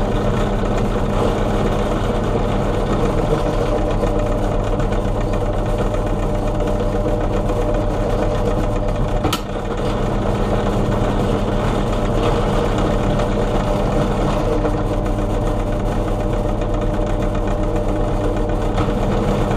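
Benchtop drill press running steadily while a bit is fed down through a steel knife blank, drilling the handle holes. The sound dips briefly with a sharp click about nine seconds in.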